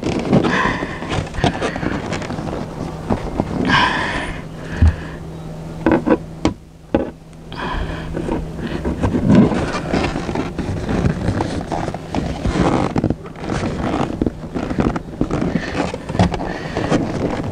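Screwdriver and pry tool scraping, clicking and knocking against the plastic seat-belt bolster trim of a Tesla Model S as it is forced and jerked to free a stubborn clip. A few brief pitched sounds come in between, about half a second in, about four seconds in and near the end.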